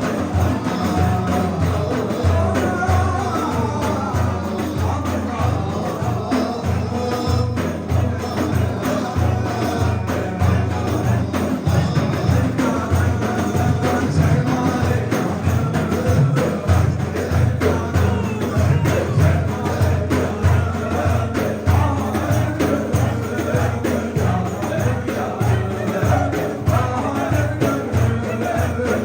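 Turkish Sufi ilahi (devotional hymn) music: singing over a steady, fast hand-drum beat.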